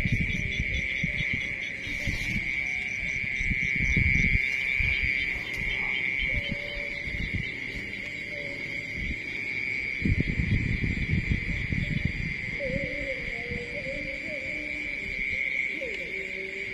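Steady high-pitched chorus of night insects such as crickets, with irregular low rustling and bumps throughout. A short wavering low call comes in about two-thirds of the way through.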